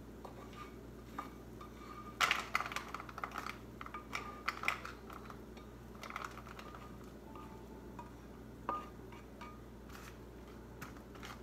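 Plastic spatula scraping and tapping fried Cheerios out of a frying pan onto a plate: a run of light clicks and scrapes, busiest from about two to five seconds in, then sparser.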